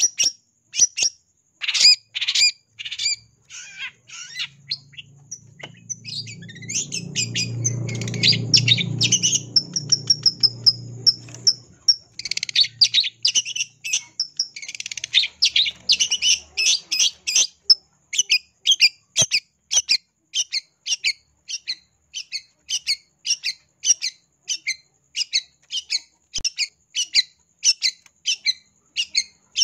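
Long-tailed shrike (cendet) calling in a long series of short, quick calls, bunched densely in places and then repeated evenly about twice a second toward the end. In the middle a low rumble swells and fades behind the calls.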